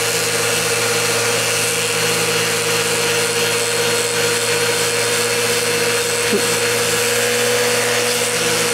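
Vacuum cleaner running steadily with a Flowbee haircutter on its hose held to the head, cutting hair and sucking it up the hose: a steady whine over rushing suction noise.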